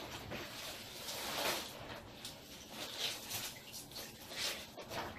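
Wet fabric being scrubbed and rubbed together by hand in a basin of soapy water, with a swishing, squelching burst every second or so.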